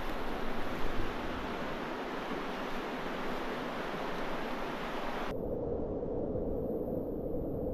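Whitewater rapids on the Merced River at high flow: a steady roar of rushing, churning water. About five seconds in it changes abruptly to a duller, muffled rush.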